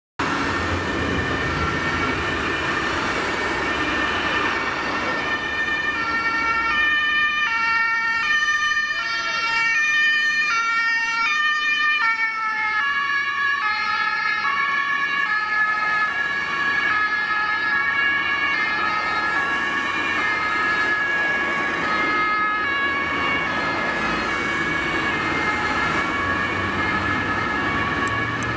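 Several German emergency-vehicle two-tone sirens (Martinshorn), each alternating between a high and a low note, sounding together out of step over road traffic noise.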